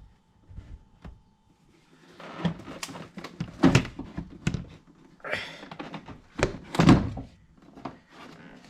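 A series of hollow thunks and knocks as intake parts are handled and moved in the engine bay during a cold air intake swap. The loudest come at about 3.7 seconds and just before 7 seconds.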